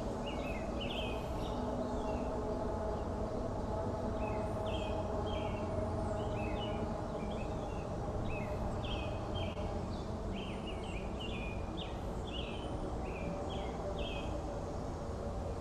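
Small birds chirping in short, quick calls, scattered throughout, over a steady low background hum.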